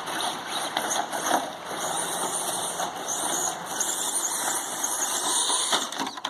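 Radio-controlled monster truck driving on three wheels, its left front tyre broken off: a motor whine that rises and falls over the noise of the wheels on the ground.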